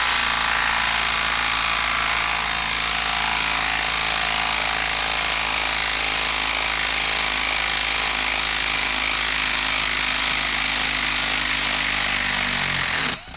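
Makita 12-volt brushed impact driver hammering steadily as it backs a long lag screw out of a log. It slows and stops about a second before the end.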